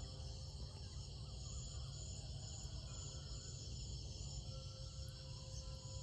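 Steady chorus of crickets and other insects in a rice paddy, shrilling on several high pitches without a break, over a constant low rumble. Faint held musical tones sound underneath, clearest near the end.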